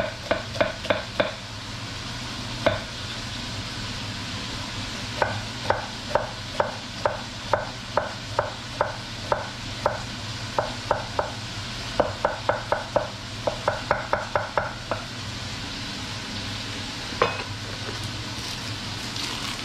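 Chef's knife dicing a white onion on a cutting board: runs of quick, crisp chops with short pauses between them. Under them, pork sizzling steadily as it browns in the pot.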